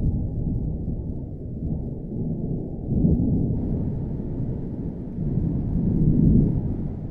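Rolling thunder: a deep rumble that swells three times and fades out near the end.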